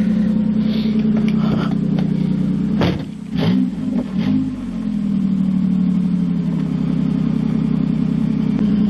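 1998 Nissan Pathfinder's V6 engine idling loudly through an exhaust that is only the headers, with no mufflers or pipes after them. About three seconds in, the idle sags and wavers, with a couple of clunks, then steadies again.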